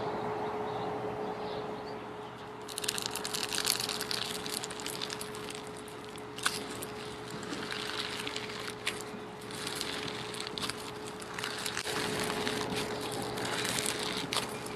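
Slime being squished and worked by hand, with wet crackling and small popping clicks that start about three seconds in and come and go, over a faint steady hum.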